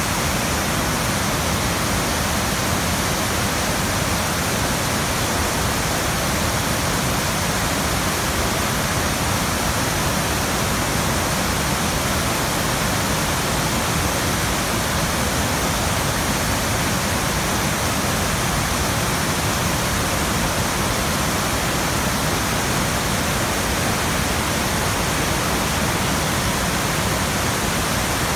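Waterfall: white water pouring down a rocky cascade, a steady full rush of water with no change throughout.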